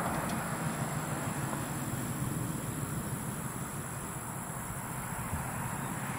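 Crickets or similar insects chirping in a steady high chorus over the low, even rumble of a freight train.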